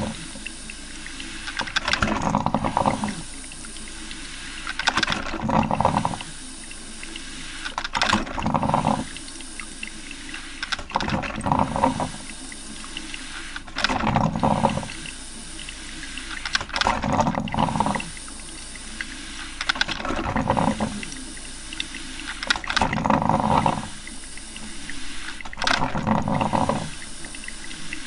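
Coffee maker brewing: bursts of gurgling about every three seconds over a steady hiss.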